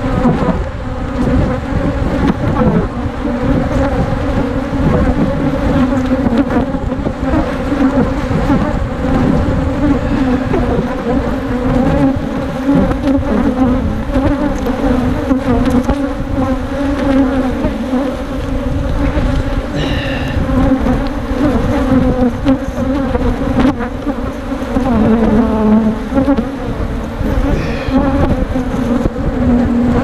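A mass of agitated honeybees from a defensive colony buzzing loudly around the beekeeper. It is one steady hum that swells and eases but never stops, the sound of bees attacking and stinging.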